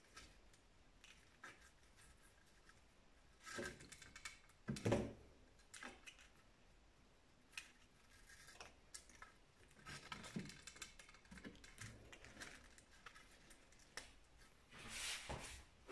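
Faint handling sounds of twine being pulled and wrapped around wooden slats: scattered light rustles and small knocks, with a soft thump about five seconds in and a longer rustle near the end.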